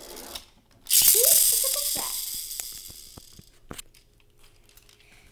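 Pull-back toy car's wind-up spring motor whirring. The sound starts suddenly about a second in and fades away over a couple of seconds as the motor runs down. A few light clicks follow as the car is handled.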